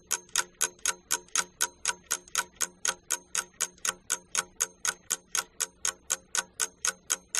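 Ticking clock sound effect used as a thinking-time timer, a quick, even run of ticks.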